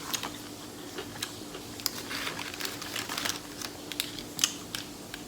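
Close-up crunching and chewing of a fried egg roll: irregular crisp crackles and clicks from the crunchy wrapper, over a faint steady hum.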